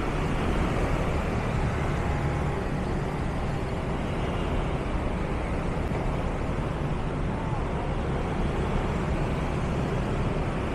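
Steady street traffic noise with a low engine hum, heard while travelling along city streets.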